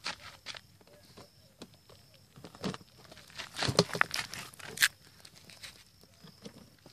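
Scattered knocks, clicks and scrapes of a metal trunk being handled and pushed on gravel, with feet shuffling on the gravel; the loudest knocks come about three to five seconds in.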